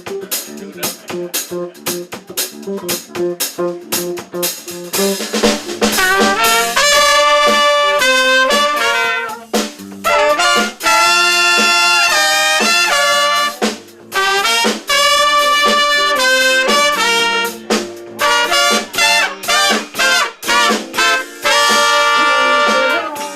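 Live band playing: drums and bass groove, joined about five seconds in by a horn playing a melody over the rhythm.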